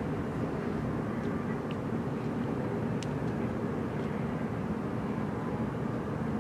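Steady low rumble of the cruise ship Anthem of the Seas' engines and machinery as she passes close by, with a few faint ticks over it.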